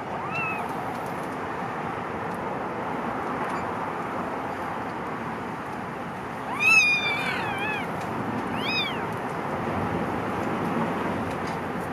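Kittens mewing. There is a faint mew at the start, a loud mew a little past halfway, then a shorter one about a second later, over a steady background hiss.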